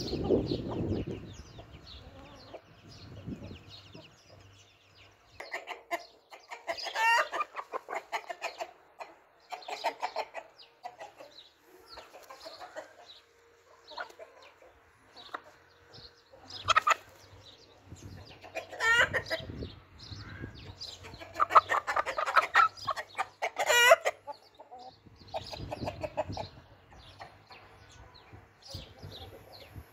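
Flock of chickens clucking and calling, with several louder drawn-out calls, among them a rooster crowing.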